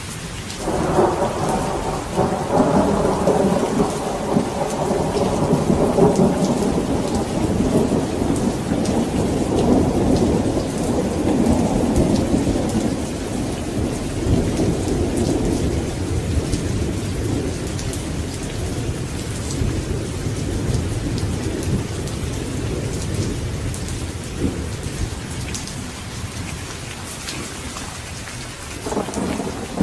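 Steady rain hissing, with a long rolling peal of thunder that breaks about a second in and slowly rumbles away over the next twenty seconds; another thunder peal starts near the end.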